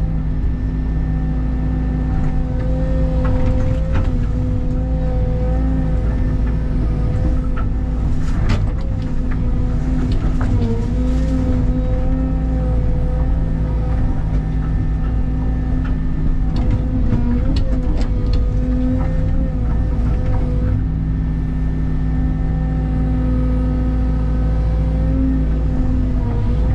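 Rented Cat excavator running steadily under work, with a steady pitched whine over the engine and a few sharp knocks about 3, 8 and 11 seconds in as it digs around a tree.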